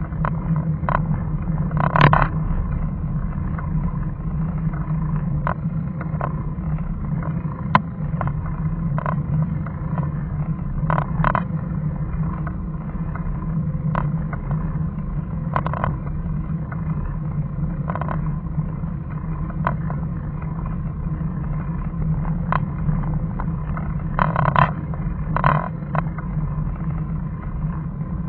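A car's engine and road noise heard from inside the moving car, a steady low drone, with short knocks and rattles every second or two, a cluster of them near the end.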